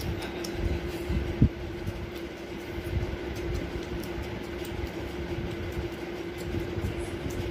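Steady mechanical hum with one clear tone and a low rumble. There are a few soft low thumps about a second in, the sharpest just before a second and a half.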